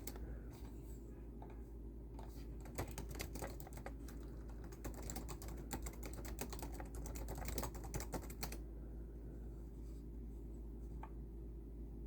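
Typing on a computer keyboard: fast, irregular runs of keystrokes that stop about eight and a half seconds in, with one more lone click near the end. A steady low hum runs underneath.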